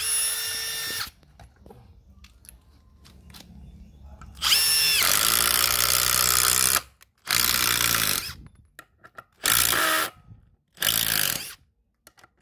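Makita TD170 18 V cordless impact driver driving long screws into wood in bursts: a short one at the start, a longer one of about two seconds from about four and a half seconds in, then three shorter ones. Each burst opens with a rising motor whine, then a dense hammering rattle as the screw goes in.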